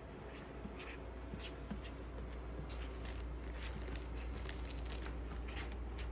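Calico mix cat kneading with its paws, giving irregular soft scratches and rustles, several a second, that grow busier about halfway through.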